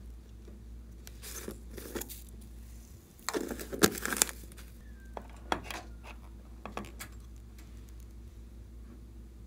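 Clinking and clattering of small hard objects: a few light clicks, then a dense burst of clatter about three to four seconds in, then a few scattered clicks.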